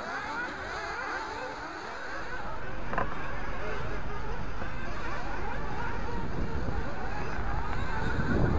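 Nitro RC buggy engines whining and revving at a distance, their pitch rising and falling. About two seconds in, a louder steady low rumble comes in under them, with a single click a second later.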